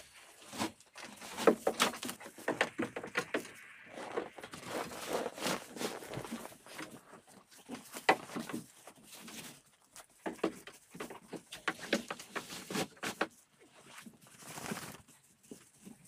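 Goats pulling hay from a wooden slatted feeder: rustling, crackling hay with many short clicks and knocks, in uneven bursts.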